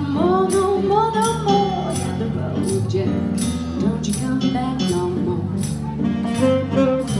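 A woman singing into a microphone over Roland electric keyboard chords, with a steady high percussion tap about every two-thirds of a second, played live through a PA speaker.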